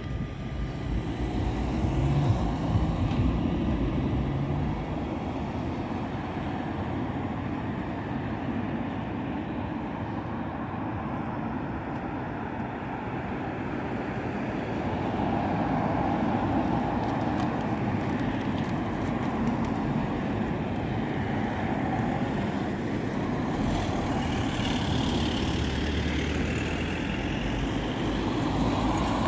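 Oslo Metro MX3000 train running through a level crossing, its motors and wheels on the rails over steady road traffic. Near the end the crossing's NMA EBA electronic bell rings as the barriers come down.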